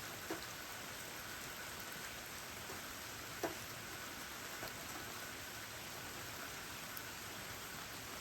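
Steady rain falling, an even hiss, with a few louder single drops plinking close by, the loudest about three and a half seconds in.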